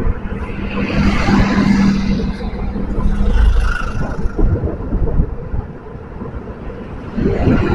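Street traffic heard from a moving rider: a low rumble of wind on the microphone. A steady vehicle engine hum runs for about the first three seconds, then fades, and another swell of traffic noise comes near the end.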